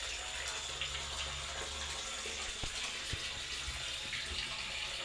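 Water running steadily from a tap, with a couple of faint knocks about halfway through.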